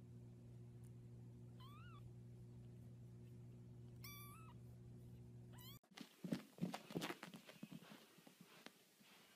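Very young orange kitten mewing: two short, high-pitched mews about two seconds apart over a steady low hum. After a cut, a scatter of soft knocks and taps.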